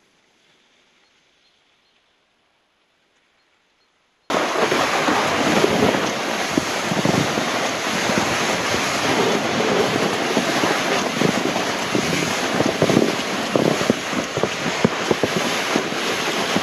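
Near silence for about four seconds, then suddenly a loud, steady rushing and scraping with irregular knocks. This is a Fjellpulken Transporter pulk sled gliding and jolting over a tracked snow trail behind a cross-country skier, heard from on the sled, with wind on the microphone.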